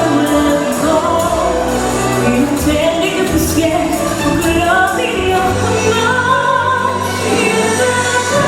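Show music with singing voices over a full instrumental backing, loud and continuous.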